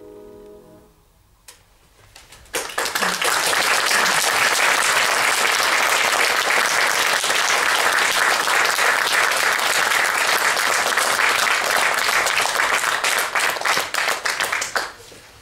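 A final chord on a grand piano dies away, and after a short pause an audience applauds steadily for about twelve seconds, stopping shortly before the end.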